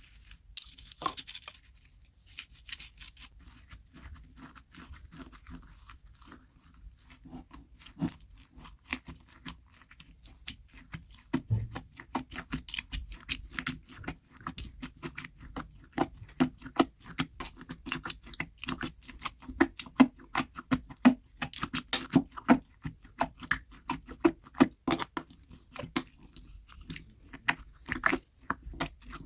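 Slime being squeezed and pressed by hand, making many small wet clicks and pops, sparse at first and coming thick and fast from about ten seconds in.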